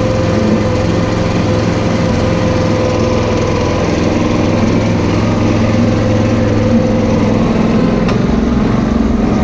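Small engine of a motorized feed cart running steadily as it travels along the feed alley, with a constant hum and whine; the deeper part of the hum eases off near the end.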